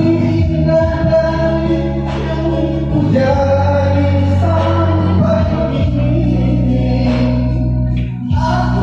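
A small group singing a song together over steady instrumental accompaniment, with long held notes.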